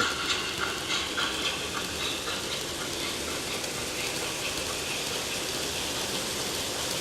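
MTH HO-scale model train running at speed on its track, a fast clicking rattle of wheels and mechanism that closes up into a steady hiss as it speeds up toward a scale 100 miles an hour.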